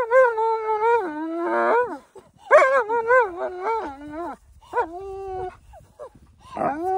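German Shepherd vocalizing while tugging on a stick, giving a string of long, wavering, high-pitched whining cries with short gaps between them. A longer, steadier cry starts near the end.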